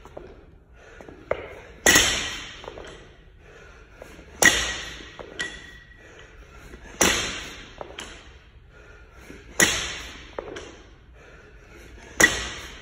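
Loaded barbell with 10 kg bumper plates hitting the floor at the bottom of each ground-to-overhead rep: five hard clangs about two and a half seconds apart, each ringing with a metallic ping and sometimes followed by a small bounce.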